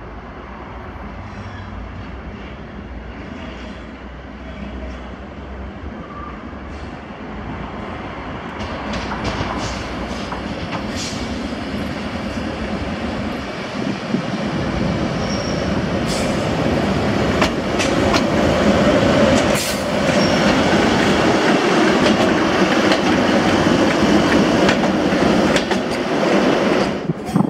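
Class 90 electric locomotive approaching and passing close by, growing steadily louder. From about a third of the way in, its wheels give off many sharp clicks over the rail joints and points.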